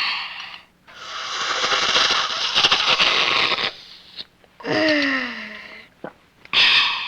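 Child slurping soup: a long, airy slurp, then a shorter one with a falling pitch, and another slurp starting near the end.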